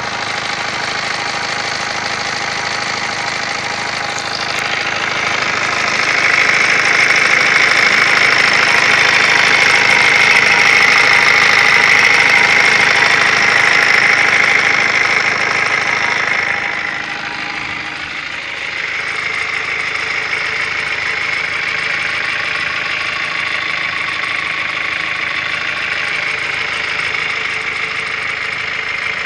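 SsangYong New Actyon running with an extraneous noise, the unwanted sound the owner is trying to single out. The sound is steady, grows louder from about five seconds in, dips near the middle, then settles again.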